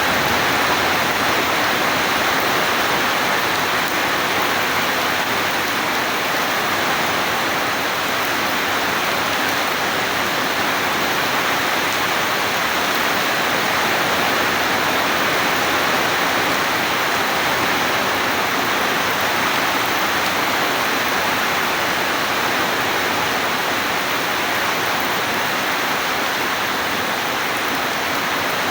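Steady rain, an even hiss that holds level throughout with no thunderclap.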